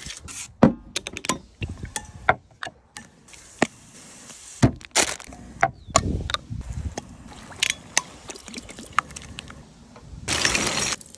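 Close-miked food-prep sounds: a chef's knife chopping and scraping minced garlic on a wooden chopping board in a run of quick sharp taps, then a glass jar of mustard being handled and opened with a few separate clicks. Near the end comes a steady hiss lasting about a second.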